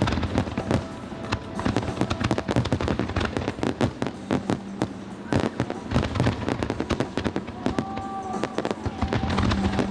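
Aerial fireworks display: a dense, continuous barrage of bangs and rapid crackling as shells burst and glittering stars fall.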